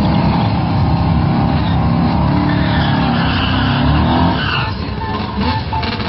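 Drag-racing cars' engines running at high revs while the rear tyres spin in a burnout at the start line. The engine note drops about four seconds in.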